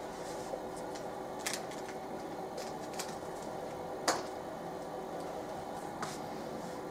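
HTVRont Auto electric heat press closed on a tea towel during a short press: a faint steady hum with a few light, scattered clicks, the sharpest about four seconds in.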